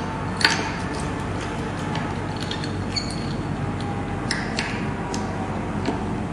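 A string winder turning a ukulele tuning peg to tighten a new string: a few small clicks and faint squeaks, the sharpest click about half a second in, over a steady background hiss.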